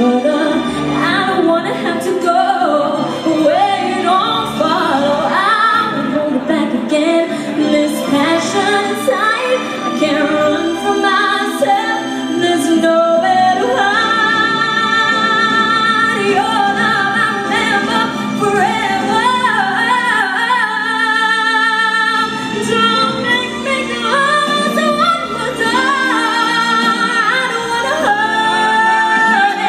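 A woman singing over backing music, holding long notes with vibrato about halfway through and again near the end.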